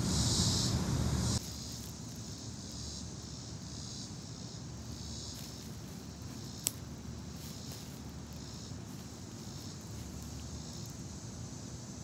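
Insects chirping outdoors, a high, pulsing buzz that repeats steadily. Wind rumbles on the microphone for the first second or so and cuts off abruptly, and a single sharp click comes about six and a half seconds in.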